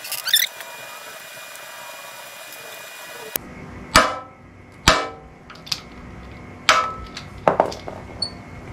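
A paintless dent repair mini lifter squeezed over a hot-glued pulling tab on a motorcycle fuel tank, giving a run of sharp clicks and snaps about a second apart as the tab is pulled and lets go. It starts a little over three seconds in.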